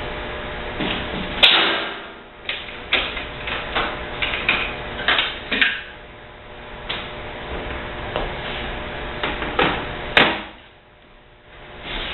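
Irregular knocks, clicks and clatters of tools and parts being handled while taking apart a dishwasher, with two sharper knocks about a second and a half in and about ten seconds in, over a steady background hum.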